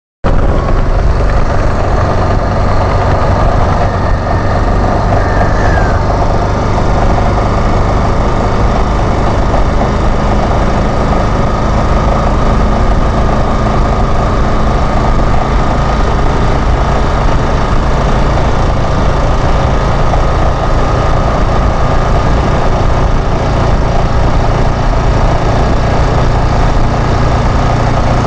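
Yamaha Fazer 150's single-cylinder engine running steadily at high revs near its top speed, under heavy wind rush on the microphone. There is no gear change or let-up.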